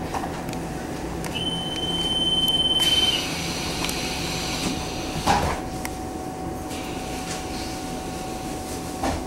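Taiwan Railway EMU700 electric commuter train standing at a station platform, its on-board equipment humming steadily. A high steady beep sounds for about two seconds, then the doors close with a hiss and a knock about five seconds in, with another knock near the end.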